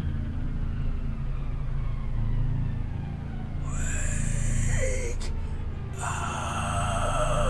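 A low rumbling drone throughout. About halfway in, a man starts crying out in fear, with a rising then falling cry, and a louder, wavering cry near the end.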